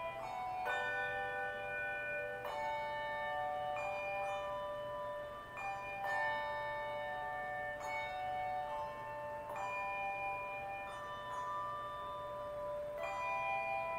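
Handbell choir playing a slow piece: chords struck every second or two, each left ringing into the next.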